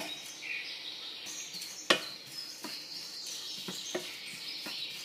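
Wooden spatula stirring rolled oats as they dry-roast in a nonstick pan: a dry rustling scrape with light taps of the spatula on the pan, and one sharper knock about two seconds in.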